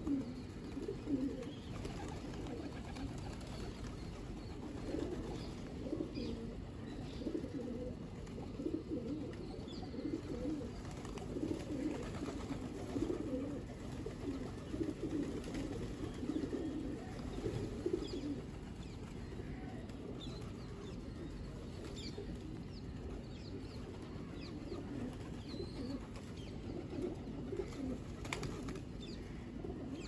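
A flock of feral pigeons cooing continuously, many low calls overlapping, with a few faint short higher sounds near the end.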